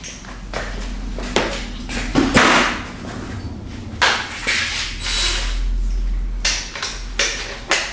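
Metal knocks and clatter of hand work on a lawn mower deck, with two longer noisy scraping or rattling passages.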